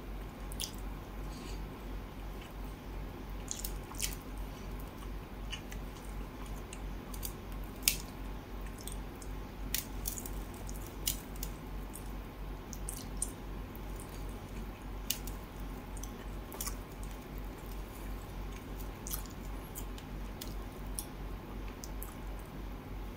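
Fingers picking apart a curry-coated fish on a steel plate, with close-up eating sounds: soft wet squishes and scattered sharp clicks, the loudest about eight seconds in, over a steady low hum.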